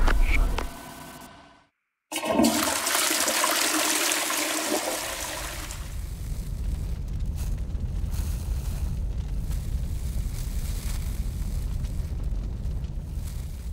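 After a moment of silence, a loud rushing hiss starts suddenly. A few seconds later it eases into a lower, steady rumbling noise.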